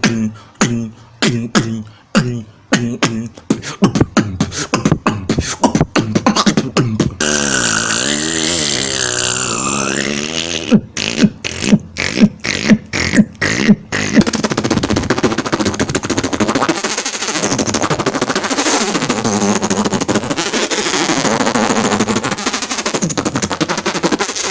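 Beatboxer making sound effects with his mouth alone: a fast run of clicks and pops, then a wavering pitched tone that dips and rises, a string of about seven sharp pops, and for the last ten seconds a steady rushing noise with slow swells.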